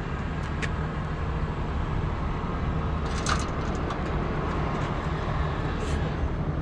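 Crane truck's engine running steadily with a low drone, with a few light clicks and clanks over it.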